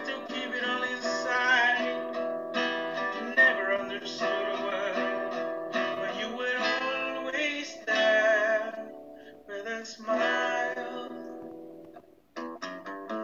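A man singing while strumming an acoustic guitar, heard thin and without bass through a tablet's speaker over a video call. The song breaks off briefly about twelve seconds in.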